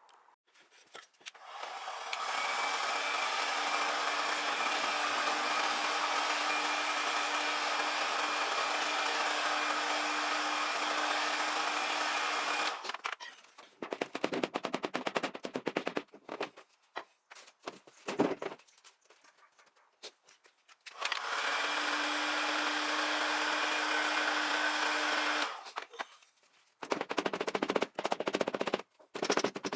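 Small handheld power tool running in two long steady stretches, sanding down the plastic-welded repair on a car bumper, with bursts of rapid clattering in between as it touches the plastic.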